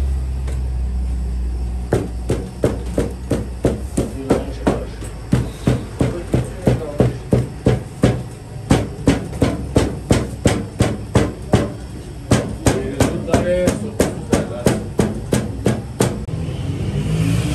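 Dough balls slapped and tossed between a baker's palms in a quick even rhythm, about three sharp slaps a second, starting about two seconds in and stopping shortly before the end, over a steady low hum.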